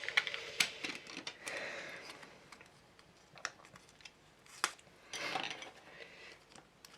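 Small sharp clicks and taps of plastic model-kit parts and hand tools being handled, with a brief rustle just after the middle.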